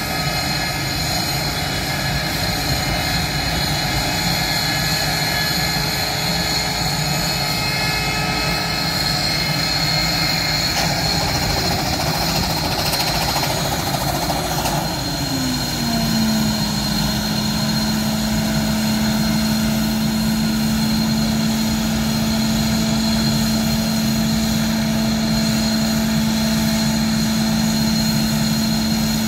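Northrop F-5 jets' J85 turbojet engines running at idle on the ramp: a steady loud jet whine and rumble. About halfway through, one tone slides down in pitch, then holds steady.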